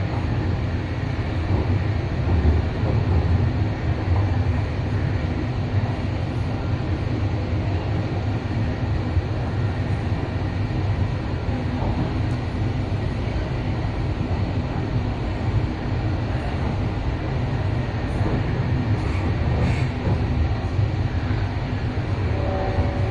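MTR East Rail Line train running at speed, heard from inside the passenger car: a steady rumble of wheels on track and car body. A steady tone joins near the end.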